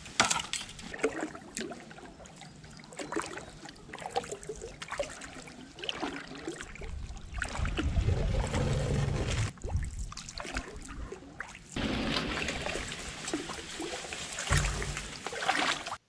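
Water sloshing and trickling around a wooden boat being paddled, with scattered knocks and clicks throughout.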